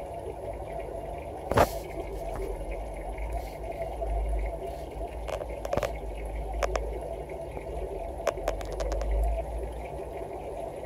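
Aquarium water bubbling and running steadily, with a low rumble and a dozen or so sharp clicks, the loudest about a second and a half in.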